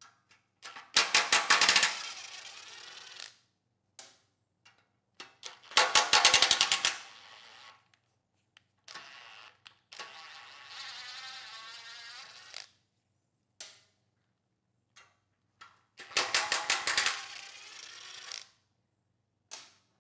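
Cordless impact driver hammering bolts loose in three bursts of about a second each, about one, six and sixteen seconds in, each followed by the motor whirring freely as the loosened bolt spins out. In the middle it runs for about three seconds without hammering, with a few short trigger blips between.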